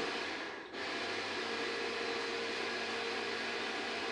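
Steady mechanical whir of a running motor, with a short dip under a second in.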